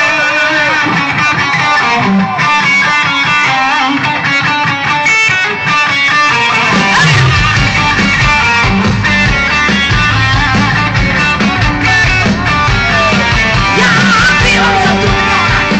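Live rock band playing an instrumental passage led by guitar, with bass and drums coming in strongly about seven seconds in.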